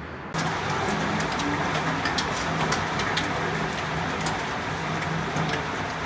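Hail and rain pelting paving: a dense hiss scattered with many sharp ticks of hailstones striking, starting abruptly about a third of a second in, with a steady low hum underneath.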